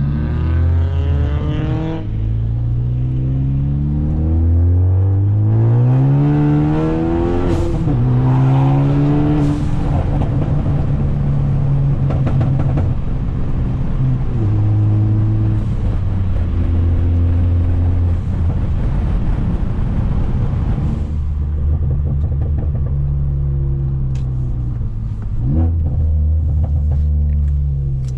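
Straight-piped, turbocharged Ford Focus ST engine accelerating through the gears. The exhaust note climbs and breaks at each shift, a few sharp pops come around the gear changes, and it then settles into a steady cruise. Near the end the note falls off as the car slows, with a few lighter pops.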